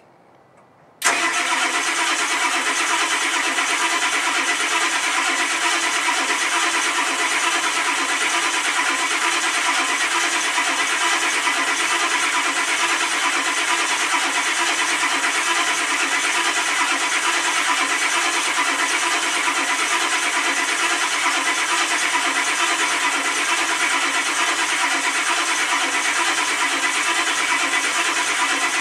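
Starter cranking the cold 7.3-litre IDI diesel of a 1991 Ford F-250, cutting in about a second in and grinding on steadily without the engine catching.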